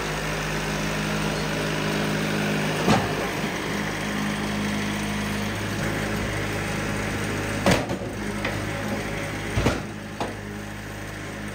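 Wood-Mizer portable sawmill's engine idling steadily, with a few sharp knocks as the log handling moves the cant against the clamps.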